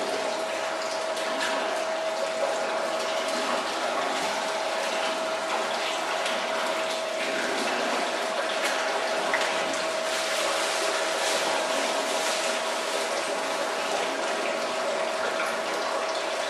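Electric potato chip slicing machine running with water flowing through it: a steady hum over running water as the cut slices wash out of the chute.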